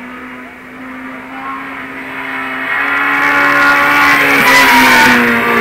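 Rally-prepared hatchback race car coming up a wet hillclimb and passing, its engine at high revs, growing louder as it nears and loudest about five seconds in, with the hiss of tyres on the wet tarmac as it goes by.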